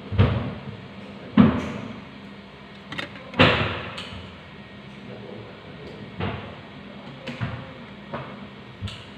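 Irregular knocks and thumps of things being handled and set down on a hard tabletop: three heavier knocks in the first few seconds, then lighter taps.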